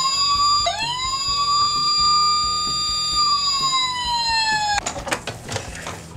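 Toy police car's electronic siren sound effect. It gives two rising wails, and the second is held steady, then falls and cuts off suddenly about two-thirds of the way through. Quick plastic clicks and rattles follow as the toy cars are handled.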